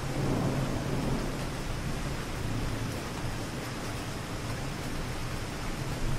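Steady rain falling on a city street, with a low roll of distant thunder that swells at the start and fades after about a second and a half.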